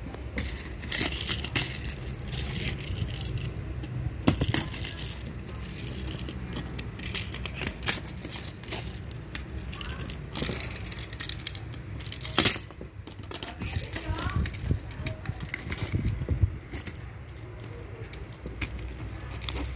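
Hard plastic parts of a toy phone clicking, rattling and scraping as the case is pried apart by hand. Irregular small clicks throughout, with a sharp louder snap about four seconds in and another about twelve seconds in.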